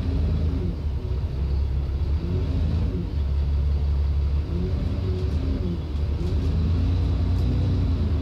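Alexander Dennis Enviro400 double-decker bus heard from inside the lower deck while under way: a steady low engine and road rumble, with the engine note rising and falling several times as it pulls.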